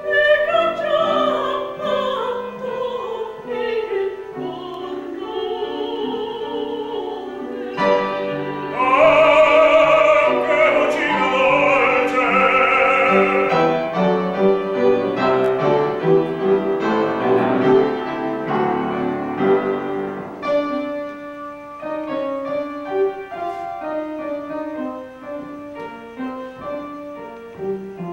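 Operatic soprano singing with vibrato over piano accompaniment. The voice swells to its loudest from about nine seconds in, and the piano carries on mostly alone in the last few seconds.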